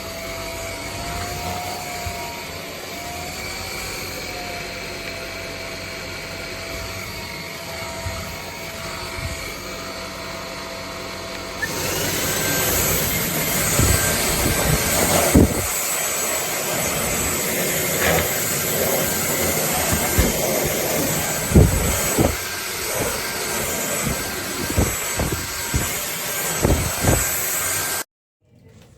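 Dreame Z30 cordless stick vacuum running, a steady motor whine that gets louder and rougher about twelve seconds in, with scattered knocks and clicks from then on. It cuts off abruptly near the end.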